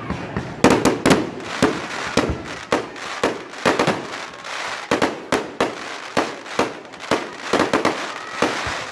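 Fireworks going off in rapid, irregular succession: sharp bangs and cracks about two to three a second, the loudest near the start.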